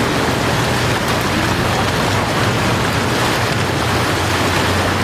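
Steady rush of fast-flowing shallow river water, splashing against an inflatable rescue raft held in the current. Wind buffets the microphone.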